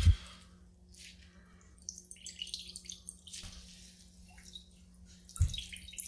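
Liquid dripping and trickling into a glass bowl as a fine mesh strainer bag of salted, chopped vegetables is squeezed by hand, with irregular faint crackle and patter. A dull thump near the end.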